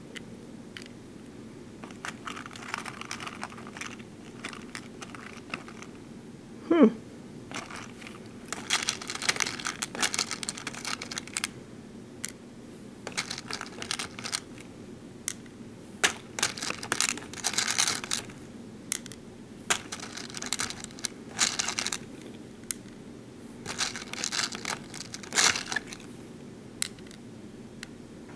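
Small BeadOs plastic beads rattling and clicking in short scratchy bursts as fingers rummage through a plastic compartment tray and set beads onto a plastic pegboard. About seven seconds in, one brief loud squeak falls quickly in pitch.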